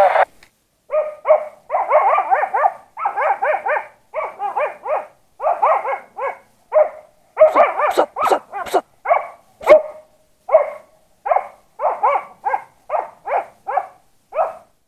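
Hunting dogs barking repeatedly in quick bouts. A few sharp cracks sound among the barks between about seven and ten seconds in.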